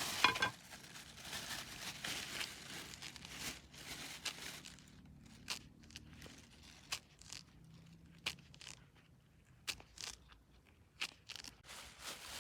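Hands peeling oranges: a soft tearing rustle of rind being pulled away, followed by scattered small snaps as pieces of peel break off.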